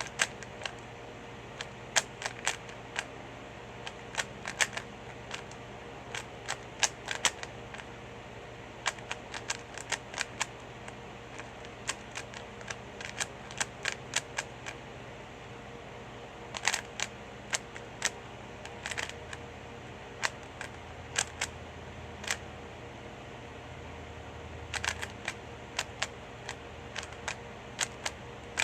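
3x3 Rubik's cube being turned fast in a speed solve: quick, irregular plastic clacks of the layers turning, in bursts with short pauses. A steady faint hum runs underneath.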